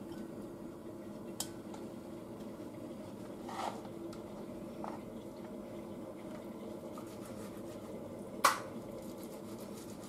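A kitchen knife cutting raw pork on a wooden cutting board: soft slicing with a few light taps of the blade on the board, the sharpest about eight and a half seconds in, over a steady low hum.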